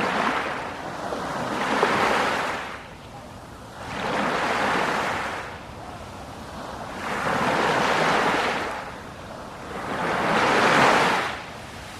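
Sea waves breaking on the shore, four surges of surf swelling and fading in turn, the last one the loudest.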